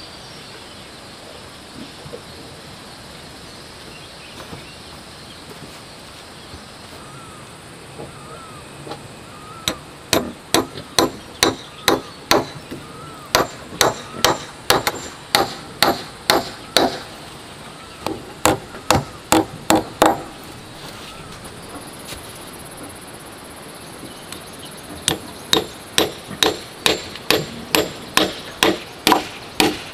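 Hammer blows on wood, struck in quick succession at about two a second, in three runs with short pauses between them; a hand tool driving fence material together.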